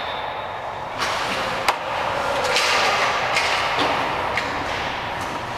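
Ice hockey practice on a rink: one sharp crack of a puck about a second and a half in, then several short scraping hisses of skate blades on the ice, over the echoing noise of the arena.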